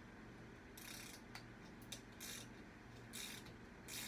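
Ratcheting torque wrench with a 4 mm hex bit loosening the bolts on a mountain bike's stem. It gives faint short bursts of ratchet clicking on the back strokes, four of them about a second apart, with a couple of single clicks in between.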